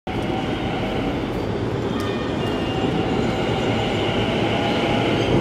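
Metro train running into an elevated station, a steady rail and running noise with a faint high whine, growing slightly louder as it nears.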